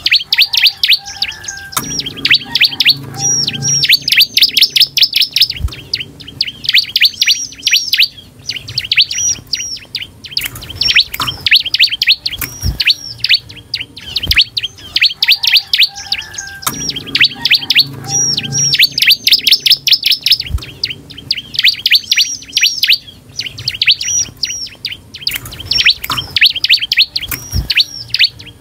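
Bar-winged prinia (ciblek) singing hard: phrase after phrase of rapid, loud, high chirps, each burst lasting a second or more, with brief pauses between.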